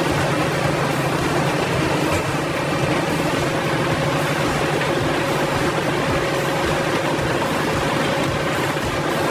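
A large diesel engine running steadily at constant speed, an even hum with no load changes or impacts.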